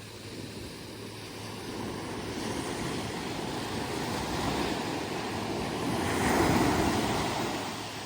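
Ocean surf: a wave building and breaking onto the beach, the wash swelling to its loudest about two-thirds of the way through, then falling away.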